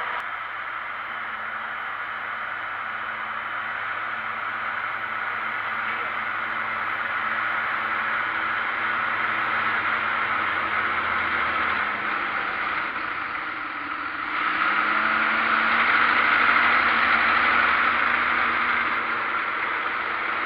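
John Deere 7530 tractor's six-cylinder diesel engine running steadily as it pulls a seed drill and approaches, getting louder about three quarters of the way through.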